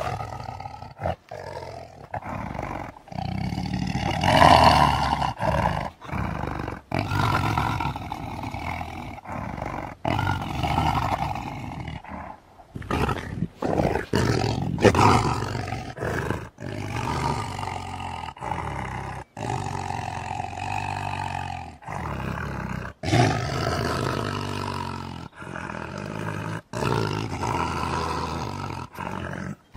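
Tiger roaring, the Shere Khan character's film sound effects, in a string of short clips spliced one after another. Each clip cuts off abruptly about every one to two seconds.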